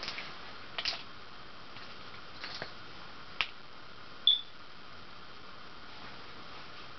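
1985 Envirofan Gold Line industrial ceiling fan running with a steady whir, with a few irregular light clicks. A short, high beep about four seconds in is the loudest sound.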